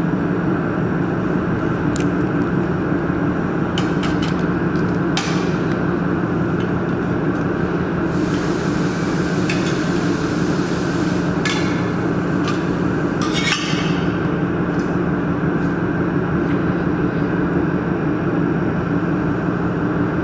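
Steady mechanical hum, with a few sharp metallic clicks and knocks and a hiss of about three seconds near the middle.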